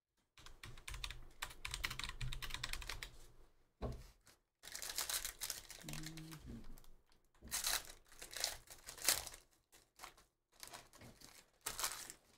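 Foil wrapper of a Panini Donruss basketball hobby pack crinkling and tearing as it is ripped open by hand, in several bursts of crackle with short pauses between.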